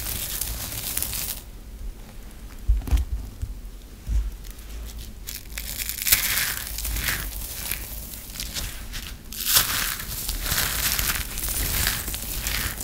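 Dry, crumbly soap shavings crushed and rubbed between the hands, a crisp crackling crunch in bursts. A quieter stretch of a few seconds comes in the first half, then dense crunching in the second half.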